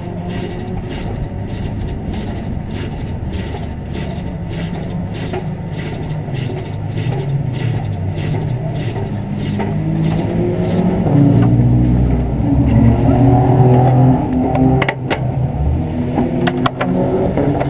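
Race car engines running in the pit lane, one swelling louder and deeper about eleven seconds in, then easing off. A few sharp clicks and knocks near the end.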